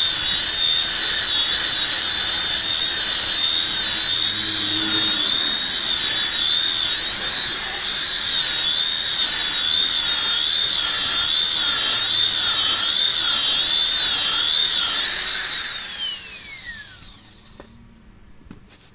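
Electric rotary polisher with a foam pad buffing car paint: a steady high motor whine that wavers as the pad is pressed and moved over the panel. About fifteen seconds in it is switched off and winds down in a falling whine.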